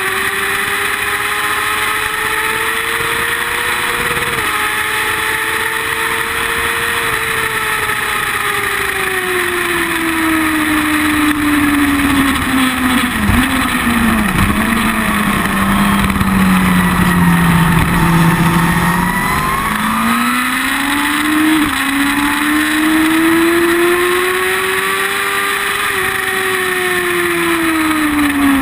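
Sport motorcycle engine with a carbon slip-on exhaust, ridden hard on a track: the engine note rises and falls through the gears, sinks about halfway through with two quick dips, holds low, then climbs again as the bike accelerates.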